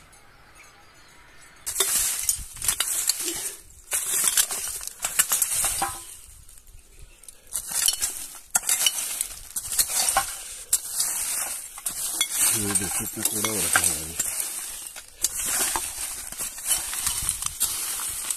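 Metal rake scraping and dragging through dry, partly burnt rubbish and dirt: repeated scratchy strokes with rustling of plastic and debris, starting about two seconds in.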